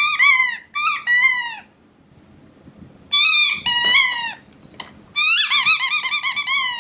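A squeaky dog toy squeaking in quick repeated squeezes, in bursts with a short pause partway through and a fast run near the end.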